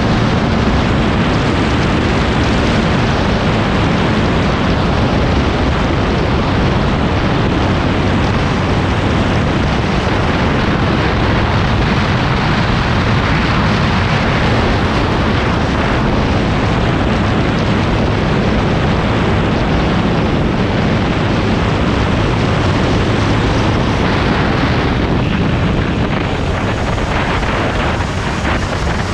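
Motorcycle running steadily at road speed, its engine under heavy wind rush on the microphone, easing off slightly near the end.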